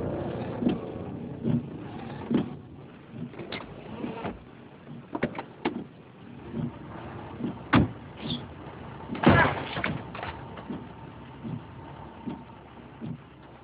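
Car sounds: irregular short thumps and knocks over a quiet background, the loudest two about eight and nine seconds in.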